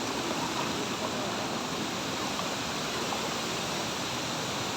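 Steady rush of water from a waterfall dropping about 20 feet, an even, unbroken noise.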